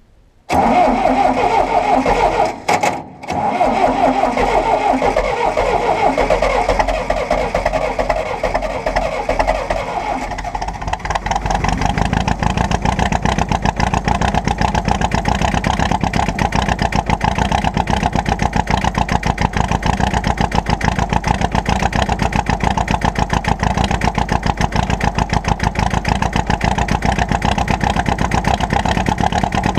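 A John Deere 2010 diesel tractor engine cranked over by the starter, jumped at the solenoid, for about eleven seconds with a short break about three seconds in. Then it catches and settles into a steady running beat.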